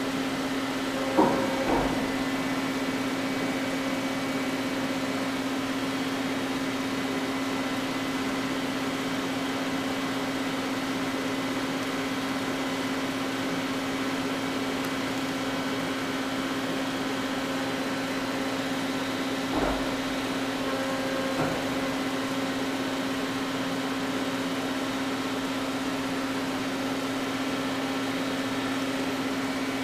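Doosan Puma 600L CNC lathe running under power: a steady machine hum with a strong, even tone. A few light knocks come about a second in and again near twenty seconds.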